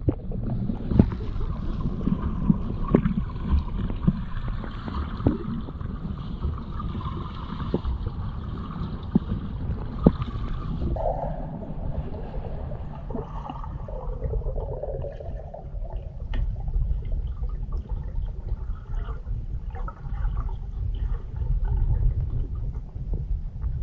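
Muffled underwater water noise picked up with the microphone submerged: a steady low rumble of moving water with faint gurgling and scattered small clicks.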